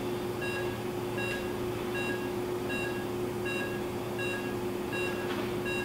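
Patient monitor's pulse oximeter beeping with each heartbeat: short, even beeps of one unchanging pitch about every three-quarters of a second, around 80 a minute, over a steady low hum.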